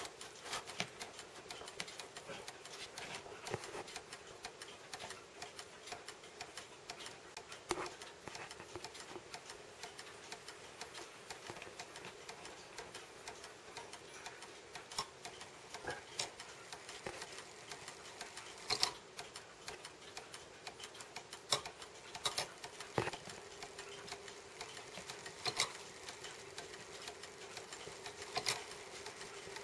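A 1910s Junghans wall-clock movement working out of its case: a fast, dense run of small metallic ticks from its brass gearing, with a sharper click every few seconds.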